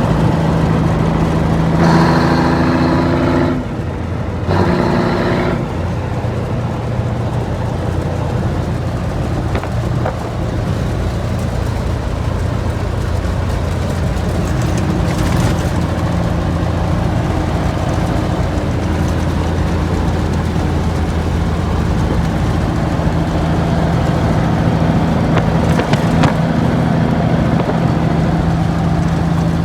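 Cummins 855 Big Cam diesel of a 1973 Kenworth W900A running steadily under way. Between about two and five seconds in, the engine note changes and dips briefly before it settles back.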